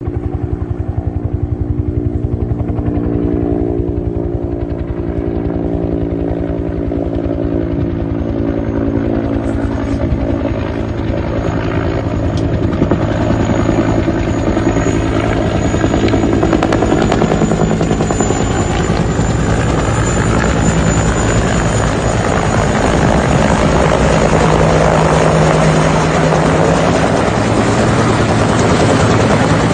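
Helicopter rotor beating fast and evenly, with a steady engine drone. A rushing noise builds through the second half and the sound grows louder toward the end.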